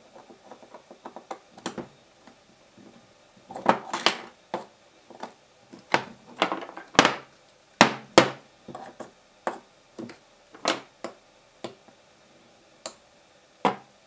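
Precision screwdriver and tweezers clicking and tapping against an iPod Video's metal back case while tiny screws are taken out: irregular sharp metallic clicks, a handful louder than the rest, with quiet gaps between.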